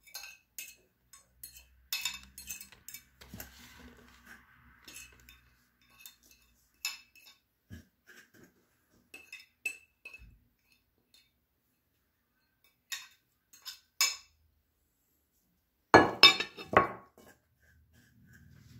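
Irregular clinks and light scrapes of a hand grater and a plate against a glass bowl, with a few louder knocks near the end.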